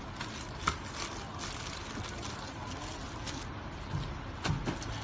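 Light clicks of buttons pressed on a handheld TPMS programming tool, once about a second in and a few times near the end, over a steady background hum.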